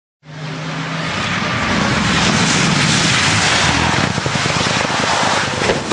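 Rally car approaching at speed: its engine and rushing noise build over the first two seconds and stay loud, with a sharp knock near the end.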